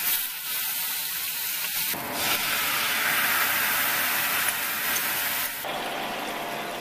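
Sauce sizzling and hissing in a hot frying pan as it is stirred, louder from about two seconds in, easing off near the end.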